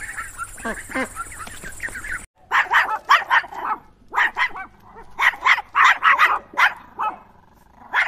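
Ducklings peeping in quick, high chirps for about the first two seconds. After a sudden cut, a dog barks in quick runs of three to five barks.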